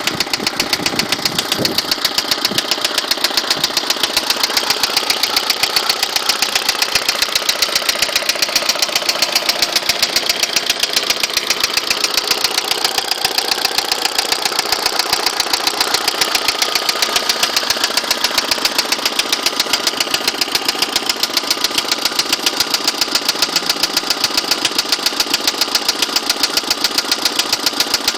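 Internal combustion engine idling while warming up, with a loud, regular knock repeating several times a second.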